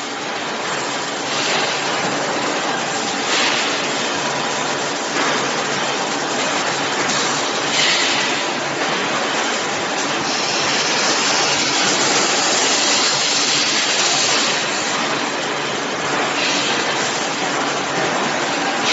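Automatic air-pressure tank strengthening machine running with a steady mechanical noise and a faint hum. Higher hissing swells come and go every couple of seconds and hold for a few seconds in the middle.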